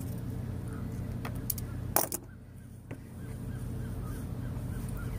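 Steady low rumble with one sharp click about two seconds in, and a run of faint, quick, evenly repeated bird calls in the background from about three seconds in.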